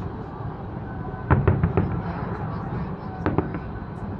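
Distant aerial fireworks bursting. A quick run of sharp bangs comes a little over a second in, and two more just after three seconds, over a steady low rumble.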